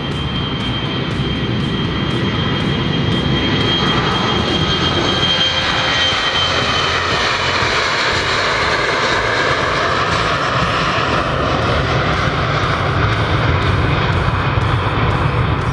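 Boeing 737 twin jet on its takeoff roll, its CFM56 turbofans at takeoff power: a loud, continuous jet roar with a high fan whine that falls in pitch as the aircraft passes, about halfway through.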